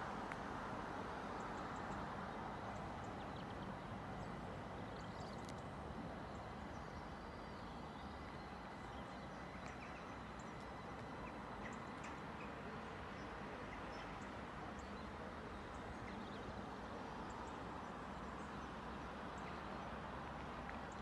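Faint, steady background noise of a station with a distant train. A thin high tone runs through about the first half, and small faint chirps flicker above it.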